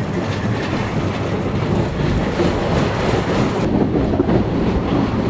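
Roller coaster train running along its track, a loud steady rattle and rumble of wheels on rail.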